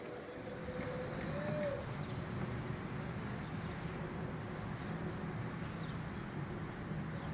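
Short, high chirps of small birds, a few a second apart and irregular, over a low steady hum.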